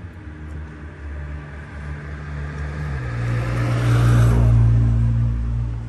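A car driving past close by on the street: its engine hum and tyre noise build up, are loudest about four seconds in, then ease off slightly.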